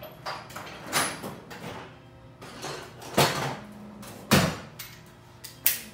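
Hand tools being handled: several sharp knocks and clatters about a second apart, the loudest a little past three and four seconds in.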